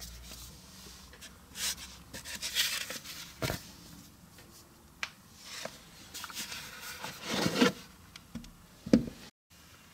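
White cotton-gloved hands handling a paper booklet and a cardboard and green Rolex presentation box: scattered rustles and scrapes with a few light knocks.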